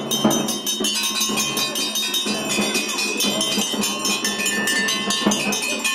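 Temple bells rung rapidly and continuously, about six metallic strikes a second, each leaving a high ringing tone.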